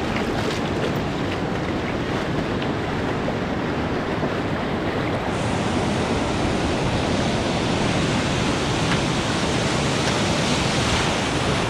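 Ocean surf washing and churning around rocks, a steady rushing hiss with wind on the microphone. A few splashing steps through shallow water sound in the first second, and the wash turns hissier about five seconds in.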